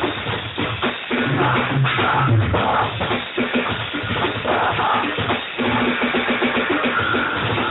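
Music with drums and a steady beat.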